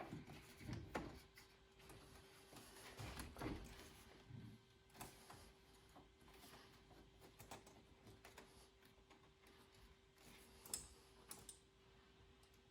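Near silence broken by scattered faint clicks and light knocks of hand tools and metal boost piping being handled, over a faint steady hum. The knocks are most frequent in the first few seconds.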